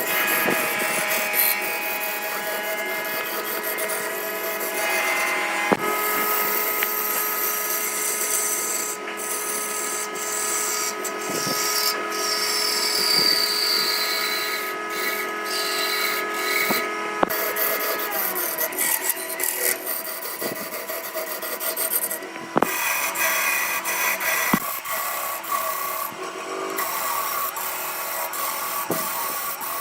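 Wood lathe running with a steady motor whine while a tool scrapes and rubs against the spinning wood. The whine falls in pitch about two-thirds of the way through, and the sound changes suddenly a couple of times.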